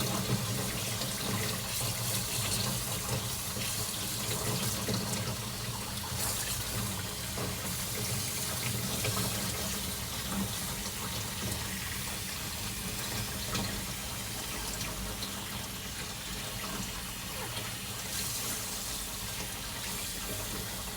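Steady rush of running water during a baby's bath, like a tap pouring.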